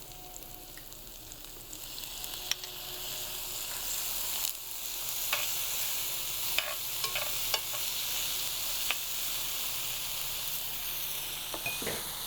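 Vegetables sizzling in hot olive oil in a preheated skillet, the sizzle growing louder about two seconds in and again a little later, with a few light clicks of a utensil against the pan.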